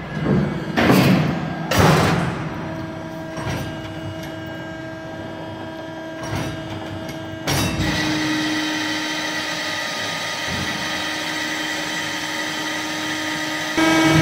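Welger SB 3000 baling press running, with a steady hydraulic hum and whine of several held tones. There is loud mechanical clattering in the first two seconds, and the hum steps up in level about seven and a half seconds in.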